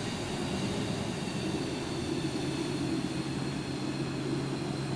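Jet engines of a Boeing 737-200 running steadily, with a thin high whine over a broad rush. A low steady hum joins about two seconds in.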